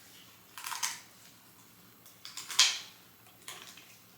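Heavy-duty kitchen shears snipping through a whole chicken's rib bones along the backbone: a crunching cut under a second in, a louder one about two and a half seconds in, and a few lighter clicks near the end.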